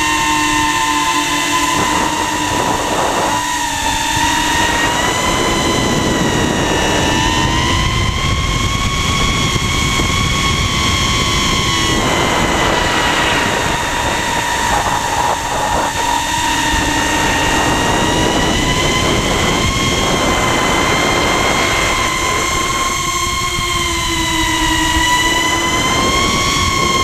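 Brushless motors and propellers of a 150mm FPV quadcopter in flight, heard from on board: a loud, steady high-pitched whine that bends up and down slightly as the throttle changes, over a rushing wind and prop-wash noise.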